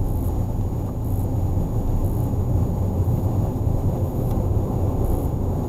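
Steady low rumble of a car driving along a highway, heard from inside the cabin: engine and tyre noise with no change in pace.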